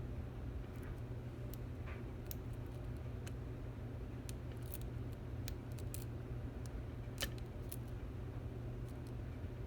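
Faint, irregular metallic clicks and scrapes of a lock pick and tension wrench working the pins of a Stanley 24/7 padlock, with one sharper click about seven seconds in, over a steady low hum.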